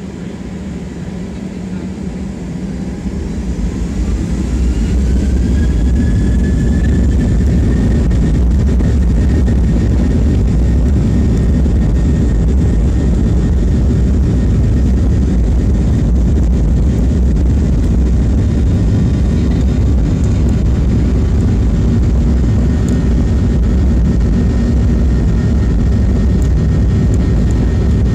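Jet engines of a Southwest Boeing 737, heard from inside the cabin, spooling up to take-off thrust. A rising whine and swelling loudness start a few seconds in, then a steady, loud low rumble continues through the take-off roll.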